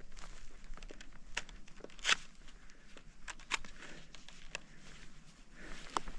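Snow crunching and scraping in irregular ticks and scuffs, with one louder scrape about two seconds in.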